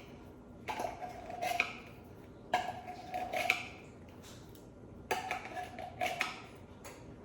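A utensil scraping against the inside of a metal can of sweetened condensed milk, three times, each scrape about a second long with a ringing metallic tone.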